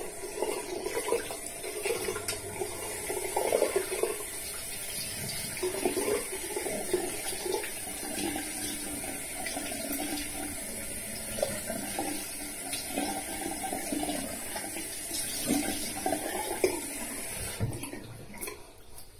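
Bathroom sink tap running, with water splashing irregularly as it is rinsed over the face after a shave. The tap is shut off near the end.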